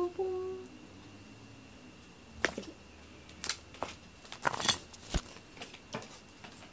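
Humming trails off at the start; then a scattered run of short rustles and light clicks, thickest about four to five seconds in.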